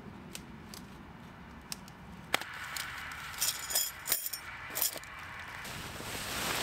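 Tent pole sections clicking together, one sharp click louder than the rest, followed by a spell of light metallic rattling and clinking. Near the end, a rising rustle of tent fabric being spread out.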